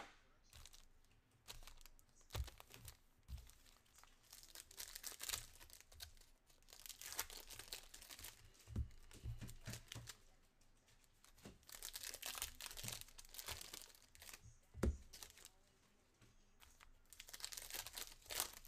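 Foil trading-card pack wrappers being torn open and crinkled in several bursts, with a few sharp knocks, the loudest about fifteen seconds in.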